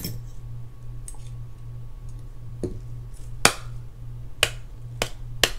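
Sharp clicks of small metal fishing-reel parts, drag washers and a pick, being handled and set down on the work surface. About six clicks at uneven spacing; the loudest comes about three and a half seconds in.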